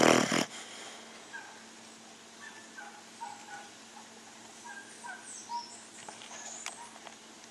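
A pet snoring: one loud snoring breath right at the start. After it the sound is quieter, with a steady low hum, faint short chirps and a few sharp clicks near the end.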